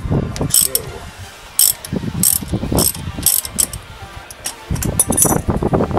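Socket ratchet clicking in short bursts about every half second, with low metallic clunks, as it undoes a front brake caliper carrier bolt.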